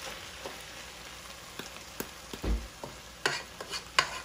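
Chopped red onions sizzling in oil in a nonstick pot, with a wooden spoon stirring and knocking against the pot several times; the sharpest knocks come near the end.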